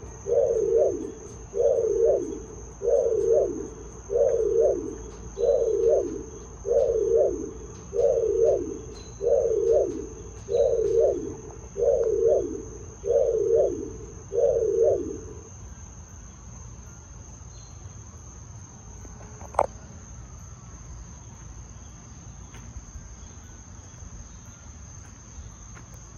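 Ford F-150's door-open warning chime dinging about once a second, some fifteen times, then stopping. A steady high insect trill runs underneath, and there is a single click about twenty seconds in.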